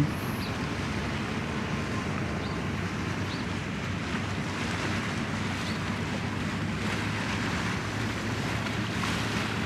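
Steady wind and harbour water noise with a low, even hum underneath.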